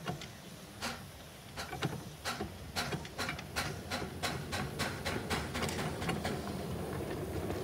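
Small narrow-gauge steam locomotive's exhaust chuffing as it runs towards the listener, the beats settling to about three a second and growing louder towards the end.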